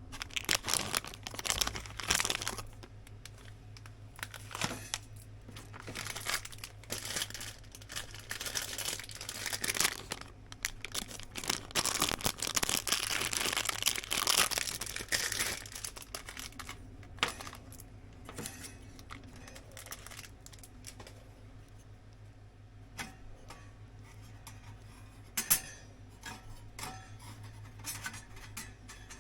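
Crinkling and rustling handling noise in bursts through the first half, heaviest just past the middle, then a few scattered light clicks and taps, with one sharper click near the end.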